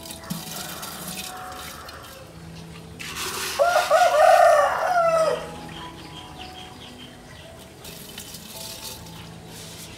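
A rooster crows once, a single long call of about two seconds starting about three and a half seconds in, over quiet background music.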